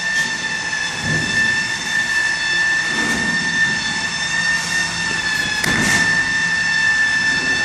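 A steady high-pitched machine whine holding one pitch, with a few short knocks and bumps underneath.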